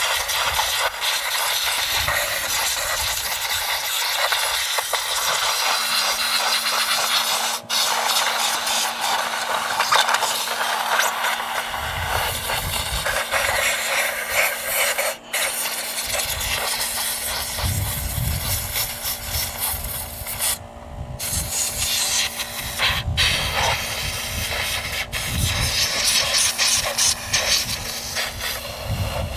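Compressed air hissing from a blow nozzle as a lawn tractor's flathead engine is blown out to clear mouse-nest debris. It runs in long blasts with a few brief breaks where the trigger is let off, and a steady low hum comes in about six seconds in.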